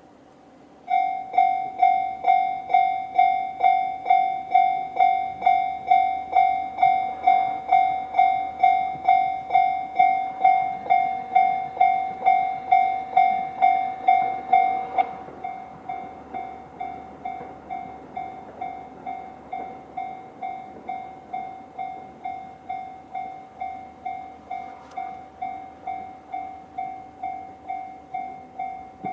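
JR-standard electronic level-crossing alarm bell starting about a second in and ringing at about two strikes a second, warning of an approaching train. About halfway through it drops to a noticeably quieter, thinner ring and keeps going.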